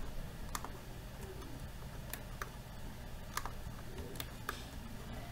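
Computer mouse clicking several times at irregular intervals while objects are selected, over a steady low hum.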